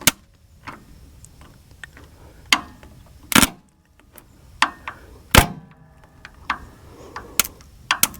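Sharp metallic clicks and knocks, about six spaced a second or two apart, from work with a tool at the tractor's starter terminals while jumping two posts to bypass a failed relay or ignition switch. No cranking or engine running is heard.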